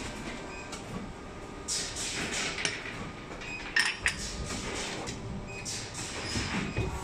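Vertical plastic injection moulding machine for USB cable plugs at work, with short bursts of hiss from the press and sharp metal clicks and clinks as the cable ends are set into the steel mould.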